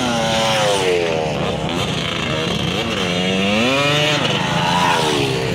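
Two motocross dirt bike engines revving as the bikes accelerate out of a dirt corner. The engine pitch climbs and drops over and over as the riders open the throttle and shift gears.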